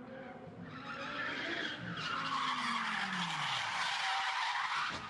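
Audi R8 sports car pulling away hard, its tyres squealing louder from about a second in over the engine's revving, whose pitch falls away near the end.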